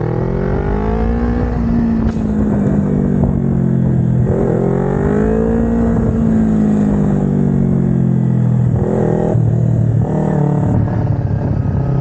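Kawasaki Ninja 250R's parallel-twin engine heard from the rider's seat while riding. The revs rise twice and ease off again, then settle to a lower, steadier note near the end.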